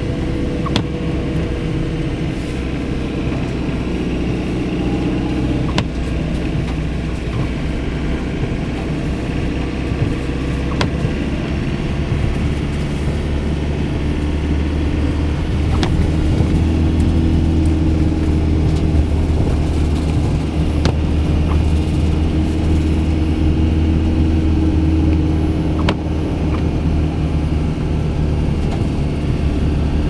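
Car engine and tyre noise heard from inside the cabin while driving on a snow-covered road: a steady low hum whose engine pitch drifts with speed, a little louder in the second half, with a few faint ticks.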